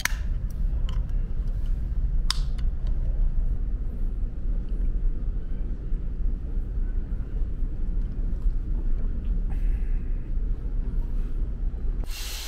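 Steady low drone of a ferry's engines heard inside the ship. A drink can's pull tab cracks open right at the start, with another sharp click a couple of seconds later. Near the end, about a second of loud hissing.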